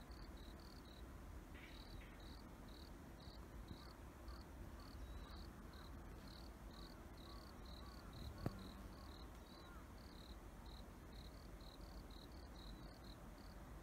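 Faint insect chirping, most likely a cricket: one short, high chirp repeated evenly about three times a second. A single sharp click comes about eight and a half seconds in.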